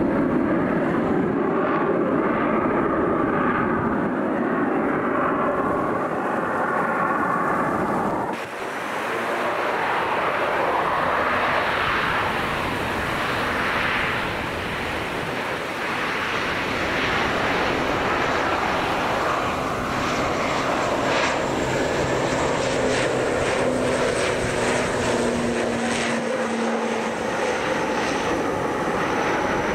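Airliner engines running loud and continuous, with an abrupt change in the sound about eight seconds in. A high steady whine joins in during the second half.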